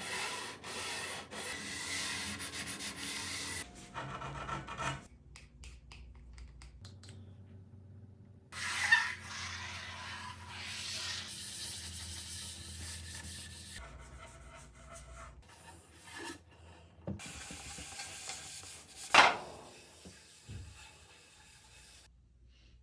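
Abrasive rubbing and sanding on a white oak tabletop, heard as a run of short clips that start and stop abruptly. There are two sharper, louder scrapes or knocks, one about nine seconds in and one near the end.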